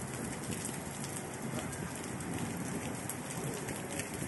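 Heavy rain falling steadily: a continuous hiss of rain with scattered sharp drop hits close by.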